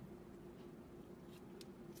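Near silence: a faint steady hum, with two faint soft ticks about a second and a half in.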